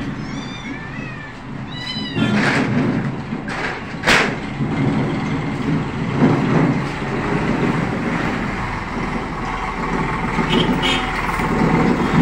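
Domestic cats meowing: several short, high meows in the first two seconds, then a few sharp knocks and rustles, and another faint meow near the end, over a steady low background rumble.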